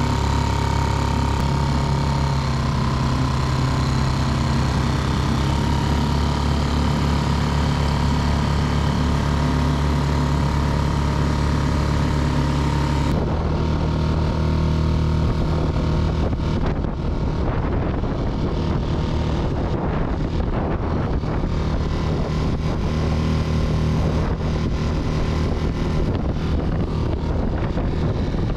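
Mercury F3.5 single-cylinder four-stroke outboard motor running at a steady speed. About halfway through, the sound changes abruptly and turns duller, with a rushing noise over the motor's steady tone.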